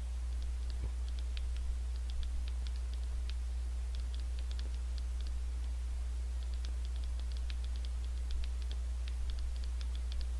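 Light, irregular clicks of thumbs typing on a smartphone touchscreen, several a second with a short pause midway, over a steady low electrical hum.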